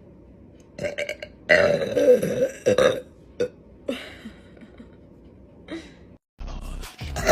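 A woman burping loudly on purpose: a couple of short belches about a second in, then one long, loud burp lasting about a second, and a shorter one right after it.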